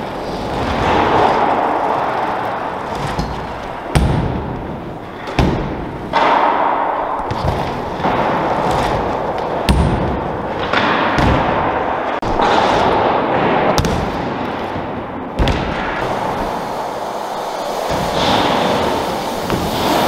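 BMX bike tyres rolling and carving on skatepark ramps, the rushing sound swelling and fading with each run. Several sharp thuds of wheels landing and striking the ramps, the clearest about four, five and ten seconds in.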